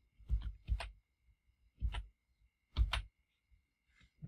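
Keystrokes on a computer keyboard: a handful of separate taps a second or so apart as a word is typed, over a faint steady thin tone.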